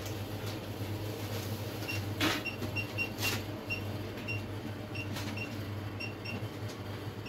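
Card payment terminal keypad beeping as its keys are pressed: about a dozen short, high beeps at uneven spacing, one per key. There are two brief rustles about two and three seconds in, over a low steady hum.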